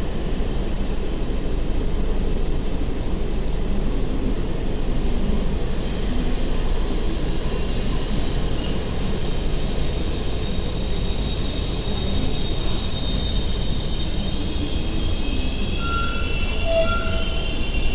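Passenger train moving through a station, with a steady low rumble. High-pitched wheel squeal comes in about halfway and grows stronger near the end.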